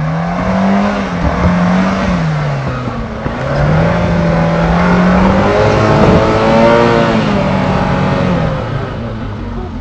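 Engine of a Suzuki SJ-series 4x4 revving up and down under load as it crawls over rocks. The revs rise and fall several times and are loudest in the middle.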